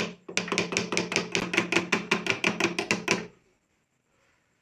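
Old domestic sewing machine running with its face plate off: the needle-bar mechanism clacks quickly and evenly, about nine strokes a second, pausing briefly just after the start and stopping about three seconds in.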